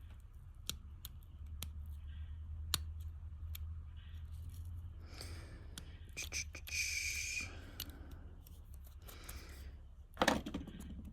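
Razor blade scraping and cutting at a lead on a Ford flip key's circuit board, severing the panic-button contact: small sharp clicks of handling at first, then rough scraping strokes, the longest about a second with a thin squeal in it.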